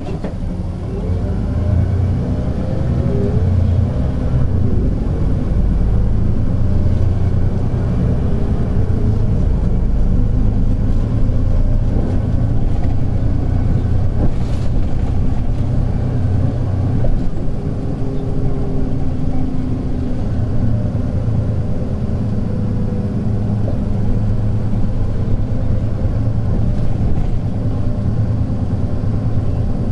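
Hino P11C diesel engine of a 2001 Hino Blue Ribbon City non-step city bus, heard from inside the cabin with the windows half open. It pulls away about a second in, its engine note rising with speed, then runs on steadily with a brief easing a little past halfway.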